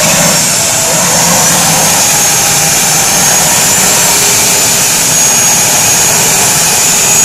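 Homemade turbojet engine on a go-kart running during its first start-up: a loud, steady rush with a thin high turbine whine that climbs a little, then holds.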